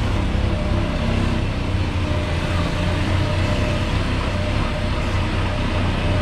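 Single-cylinder Honda Tiger motorcycle engine of a homemade mini dump truck running steadily under load while hauling about 1.6 tonnes of sand.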